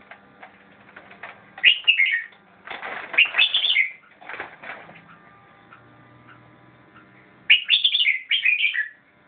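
Caged red-whiskered bulbul singing short, quick warbled phrases in several bursts, with a gap of a few seconds before the last and fullest phrase.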